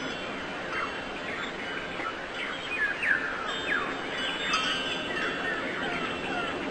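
Birds chirping in quick, short falling notes, several a second, over a steady hiss, with a few faint held ringing tones like chimes.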